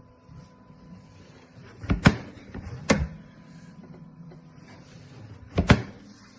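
A few sharp knocks or clacks from something being handled: a quick pair about two seconds in, a single one a second later, and another quick pair near the end.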